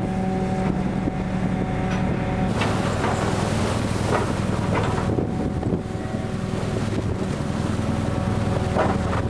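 A fishing trawler's engine droning steadily in a heavy sea, with waves rushing and crashing against the hull from about two and a half seconds in and again near the end, and wind buffeting the microphone.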